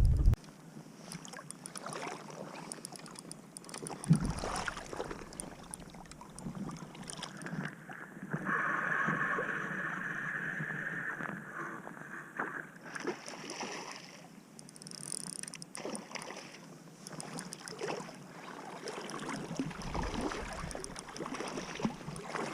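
Canoe on a river: water sounds and scattered knocks and clicks against the hull and gear, with a steady whirring for about four seconds in the middle.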